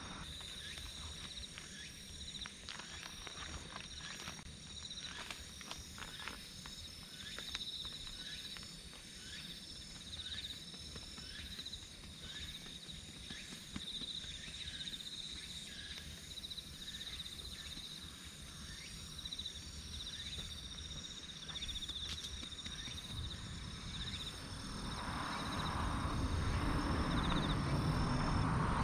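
Insects chirping in a steady, high, pulsing trill, with a few light clicks early on. About 25 seconds in, a louder rustling hiss begins as powdered oil-cake fertilizer is shaken from its bag onto the soil.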